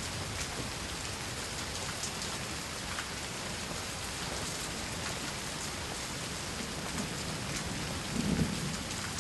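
Steady rain falling on hard surfaces, an even hiss with faint patters of drops. A brief low rumble comes about eight seconds in.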